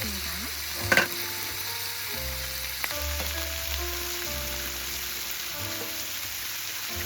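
Food frying and sizzling in a hot pan, with a short sharp tap about a second in. Soft background music with slow, steady notes plays underneath.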